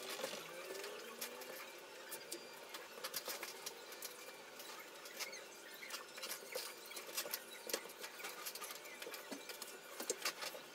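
Fast-forwarded room sound: a jumble of rapid scattered clicks and ticks, with a few quick squeaky pitch glides near the start.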